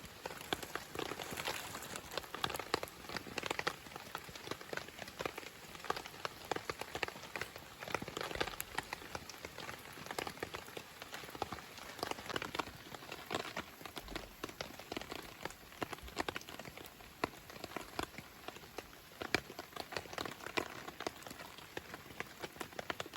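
Pork and chicken sizzling over a campfire, with dense, irregular crackling and popping.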